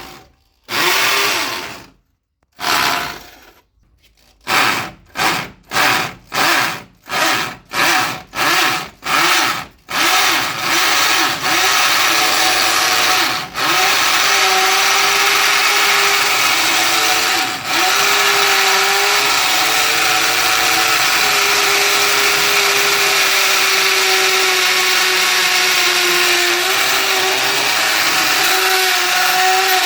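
Vonder electric drill boring into concrete. It starts with two short bursts, then a quick series of on-off trigger pulses, and from about ten seconds in it runs continuously. Its motor pitch sags and recovers as it works.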